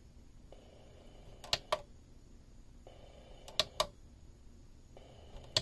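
Plastic scan button on a Hello Kitty KT2052P alarm clock radio clicking as it is pressed and released, three times about two seconds apart, each a quick double click as it steps through stations. A faint hiss comes and goes between the presses.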